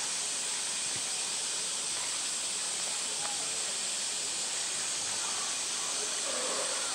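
Steady, even hissing ambience, with faint voices in the background and a soft knock about a second in.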